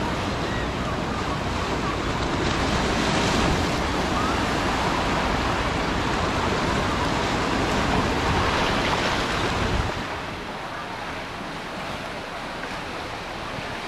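Ocean surf washing on a sandy beach, with wind buffeting the microphone. The low wind rumble drops away suddenly about ten seconds in, leaving the wash of the waves.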